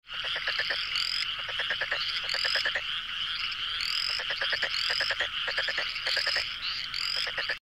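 A chorus of frogs calling: fast rattling trills overlapping with short rising chirps that repeat every second or so. It starts and stops abruptly.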